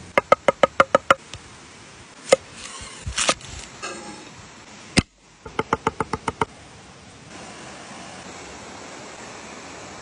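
Cleaver chopping on a wooden cutting board: two quick runs of about eight strokes each, one at the start and one after about five and a half seconds, with a few single strokes between. A steady rush of stream water runs underneath.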